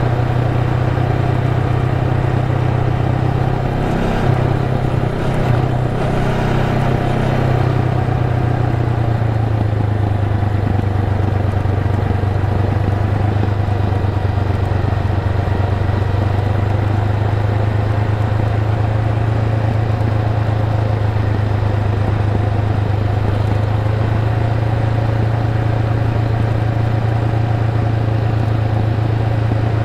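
Honda Rebel 500's parallel-twin engine running as the motorcycle cruises, over a steady rush of wind and road noise. The engine note wavers around five seconds in and settles slightly lower by about ten seconds in, then holds steady.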